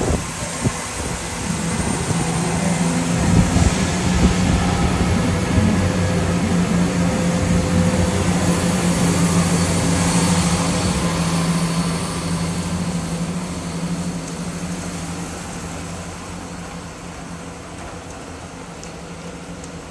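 CrossCountry Class 170 Turbostar diesel multiple unit running past, its underfloor diesel engines giving a steady drone over wheel and rail noise. It fades away over the second half as the train draws off.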